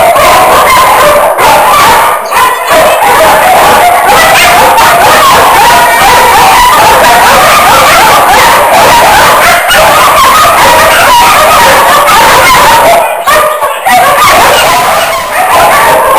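A chorus of shelter dogs in chain-link kennels, barking and yelping over one another in a constant loud din. The din eases briefly about two seconds in and again shortly before the end.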